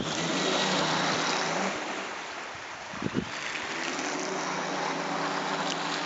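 Radio-controlled model boat running across the water: a steady motor hum over the hiss of its wake. The hum drops out just under two seconds in and comes back about a second and a half later, and there is a brief low bump about three seconds in.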